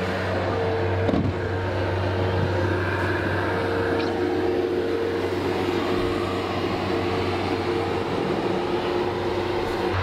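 Bobcat skid-steer loader's engine running steadily under load as it pushes snow with its bucket, a constant low drone with a steady hum above it.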